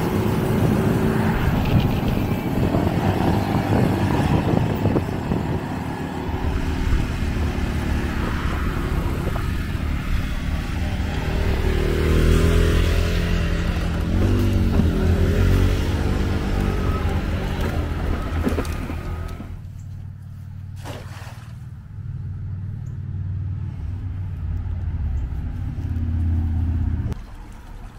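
Small 50cc scooter engine running while riding, with heavy wind noise on the microphone and the engine pitch rising and falling. About two-thirds of the way in the ride sound stops abruptly and gives way to a much quieter stretch.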